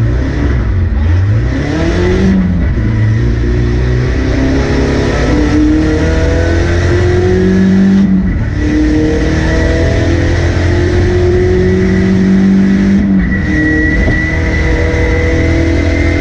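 Car engine accelerating hard up through the gears, its pitch climbing steadily and dropping sharply at each of three upshifts, about five seconds apart. A thin high whine runs alongside and rises a little near the end.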